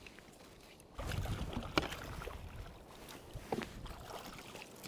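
Water sloshing and gear knocking around a fishing kayak, starting about a second in, with scattered clicks and a sharper knock shortly after.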